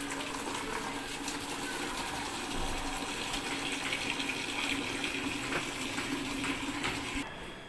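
Water rushing through a Samsung EcoBubble washing machine, with a steady hum alongside, both cutting off near the end.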